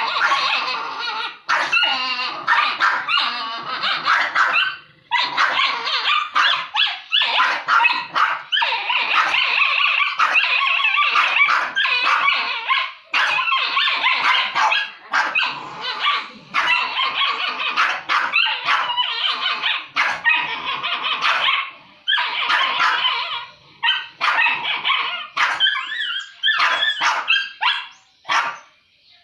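Two dogs barking at each other in a squabble over food, in long, nearly unbroken runs with short pauses, thinning to scattered barks near the end.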